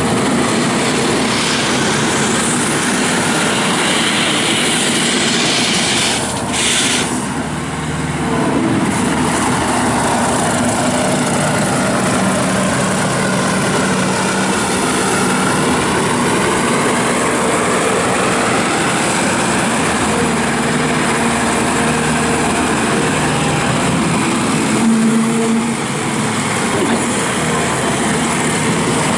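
JCB 260T Eco tracked skid steer loader running: a steady diesel engine drone with its hydraulics. The pitch swells and eases for a stretch, with a brief drop in level about six seconds in.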